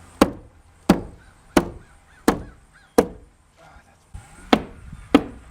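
Hammer blows: seven sharp strikes about 0.7 s apart, with a short pause after the fifth, while roofing is being fastened down.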